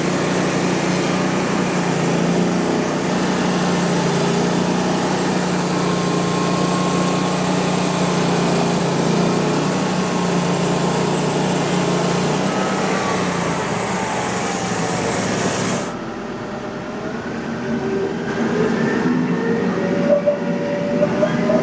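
Frontier OS35 hydraulic band sawmill ripping a wide cut through a tulip poplar log, the band blade and engine running steadily under load. About three-quarters of the way through, the cutting noise cuts off suddenly as the blade clears the log, leaving the mill running with a rising whine.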